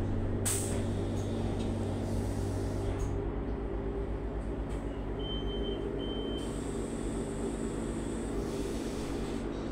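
Interior of a Solaris Urbino 18 IV Electric articulated bus standing at a stop: a steady electrical and mechanical hum from its on-board equipment, with a click about half a second in and two short high electronic beeps around the middle.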